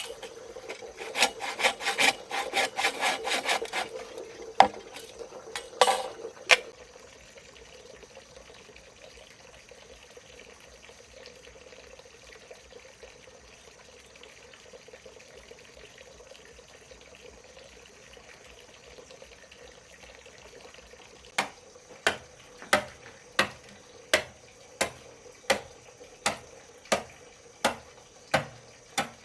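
Hand-tool work on wood: a few seconds of rapid scraping or sawing strokes and a few sharp knocks, then a quiet stretch, then evenly spaced sharp strikes, about three every two seconds, running on to the end.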